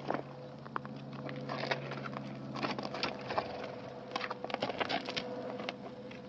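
Irregular clicks and crunches of gravel under shifting hooves and boots while a horse's foreleg is held up and its hoof handled, over a steady low hum.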